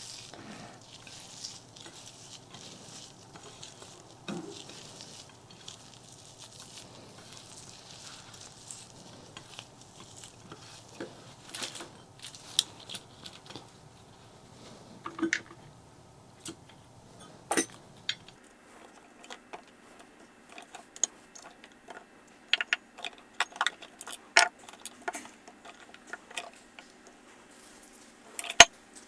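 Close-miked eating sounds of a person eating fried fish with jengkol: irregular sharp clicks, smacks and crunches of chewing and handling the food, with a few louder clinks like dishes or cutlery. The clicks come thicker in the second half.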